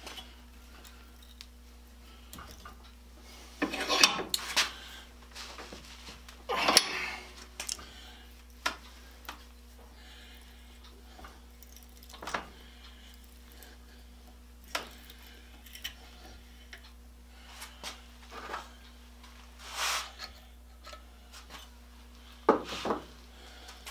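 A metal rod being threaded by hand with a round die in a die stock, the rod held in a bench vise: intermittent metal scraping and clicking as the die is turned, with a few louder metallic clatters about 4, 7, 20 and 22 seconds in.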